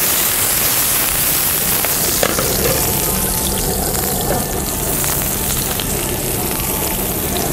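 Chopped red peppers sizzling in hot oil in a steel sauté pan, with a few light knocks as the pan is moved on the burner.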